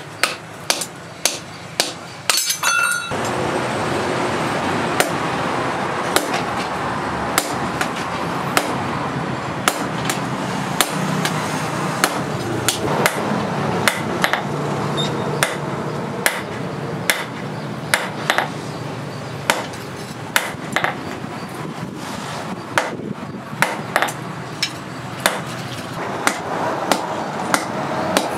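Hand hammer striking red-hot steel on a steel post anvil, a run of sharp metallic blows about one or two a second, forging a hammer head. A short metallic ring sounds about two seconds in, and a steady background rush runs under the blows after that.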